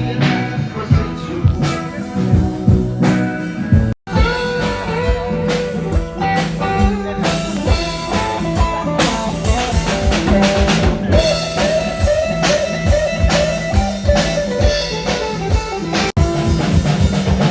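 Band playing an instrumental passage: a guitar melody over a steady drum-kit beat. The sound cuts out for an instant twice, about four seconds in and near the end.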